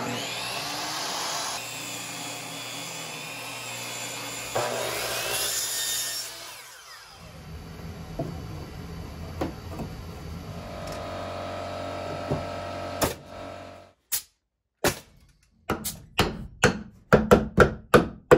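A power saw running as it rips wood blocks. It winds down about seven seconds in, then runs again until about fourteen seconds in. Near the end comes a quick series of sharp knocks as the blocks are nailed in between the studs.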